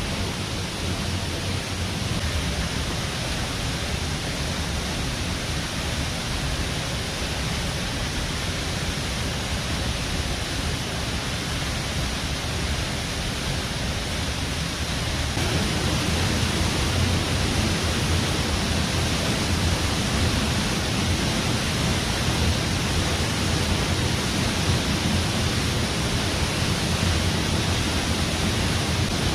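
Waterfall: a steady rush of falling water, a little louder from about halfway through.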